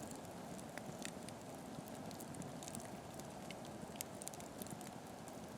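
Steady low rushing noise with faint, irregular sharp crackles and ticks scattered through it.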